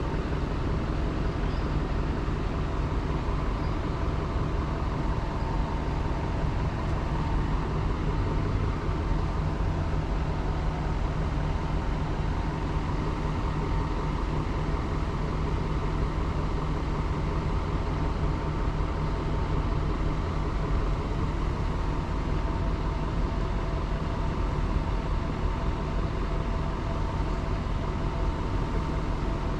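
A steady mechanical drone: a constant low rumble and hum with a faint, even whine on top, never changing.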